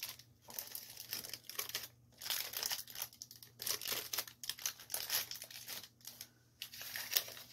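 Crinkling and rustling of plastic wrappers and packing material, in irregular bursts with short pauses, as items are pushed into a gift basket.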